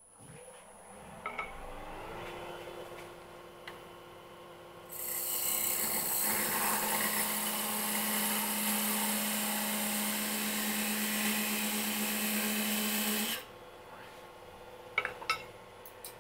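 Wood lathe motor spinning up with a rising whine and then running steadily. About five seconds in, a parting tool cuts a sizing groove into the spinning wooden mallet blank, a loud scraping hiss that lasts about eight seconds and stops abruptly while the lathe keeps running. A couple of sharp clicks come near the end.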